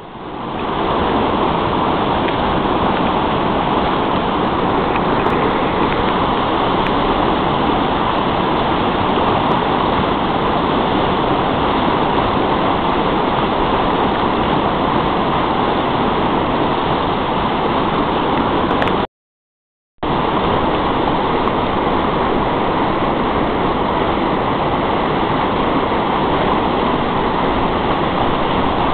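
Steady loud rushing of flowing river water. It cuts out completely for about a second around two-thirds of the way through.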